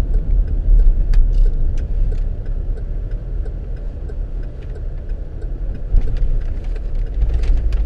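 Car engine and road noise heard from inside the cabin while driving: a steady low rumble with scattered light clicks, the rumble growing heavier near the end.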